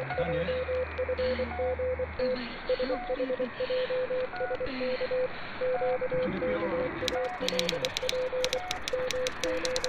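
Radio signal: a tone beeping on and off in quick, uneven pulses over a hiss, with a higher tone blipping about once a second. Sharp crackling clicks come in about seven seconds in.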